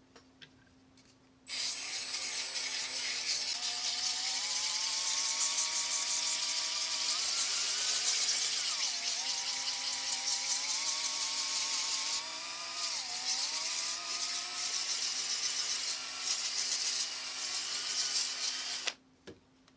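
Electric drill spinning a 3D-printed sandpaper disc sander against a laser-cut part: the motor starts about a second and a half in, its whine climbing as it speeds up, with a hiss of abrasive grinding on the part. The pitch dips twice as the part is pressed harder and the drill bogs, and it stops shortly before the end.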